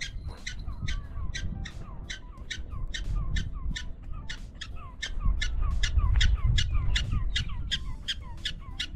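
Black-tailed prairie dog giving a fast, steady run of sharp chirping alarm barks, about three a second, each with a quick falling note, raised as the dog and people approach the colony. A low rumble runs underneath, strongest about halfway through.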